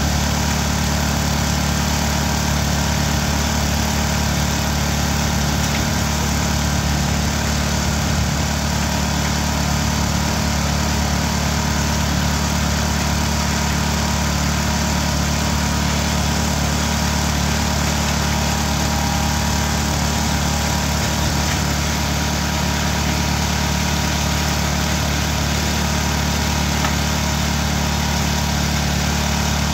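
Engine-driven finger millet crushing machine running steadily, its engine note and the noise of the machine unchanging throughout.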